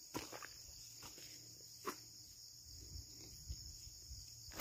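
Faint, steady, high-pitched insect chorus over terraced rice paddies, with a soft tap about two seconds in.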